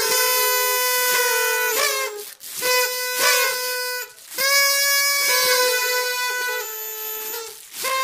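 Several party trumpets blown together in long, overlapping blasts at slightly different pitches, with short breaks about two seconds in, about four seconds in and near the end.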